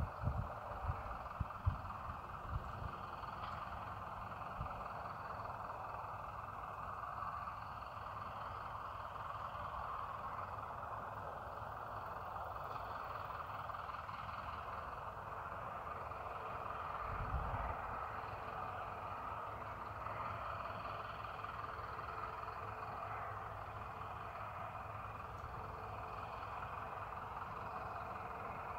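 Farm machinery engine, likely a tractor, running steadily, with a few low thumps in the first couple of seconds and another about seventeen seconds in.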